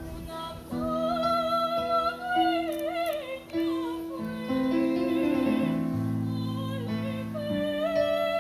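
High school choir singing, a high voice with vibrato carrying the melody over sustained lower chords that shift every second or two.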